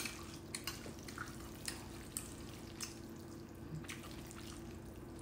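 Metal chopsticks mixing noodles through thick black bean sauce in a ceramic bowl: scattered soft, wet clicks and squishes, with one sharp clink of the chopsticks against the bowl at the very start. A faint steady hum runs underneath.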